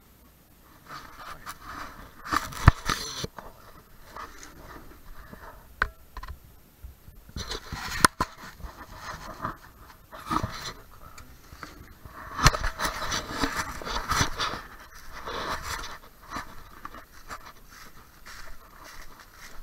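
Scraping and rustling with several sharp knocks as a rusty metal door is handled and pulled open, then crunching footsteps through dry fallen leaves near the end.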